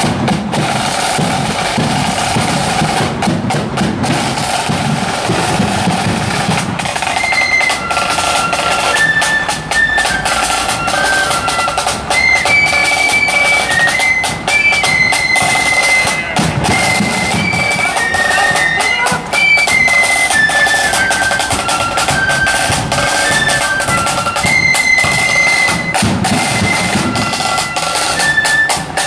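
Marching flute band playing: snare drum rolls and bass drum beat, and about seven seconds in the flutes take up a melody of high notes over the drums.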